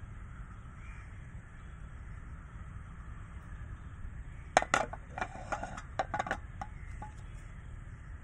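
A run of sharp clicks and light metal knocks starting about halfway through as a flat non-stick frying pan, oiled for an omelette, is tilted and set back on a gas stove's iron stand, over a steady low rumble.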